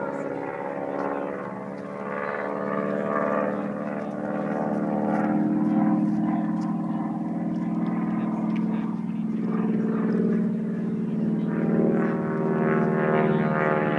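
Small aerobatic airplane's engine droning overhead as it flies loops trailing smoke. The pitch shifts slowly with the manoeuvres and the sound grows somewhat louder toward the end.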